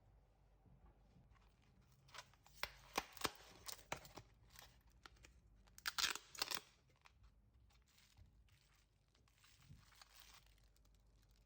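Packaging being torn open and crinkled: a run of sharp crackles and rustles, loudest about six seconds in, with a softer rustle near the end.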